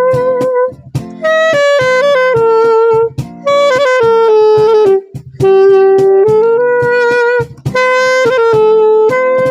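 Saxophone playing the slow melody of an old Hindi song in long held notes, the phrases broken by short breath pauses about every two seconds, over a backing accompaniment with a steady beat.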